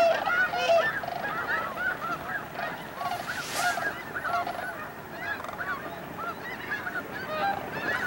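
Large flock of snow geese honking in a dense, continuous chorus of overlapping calls.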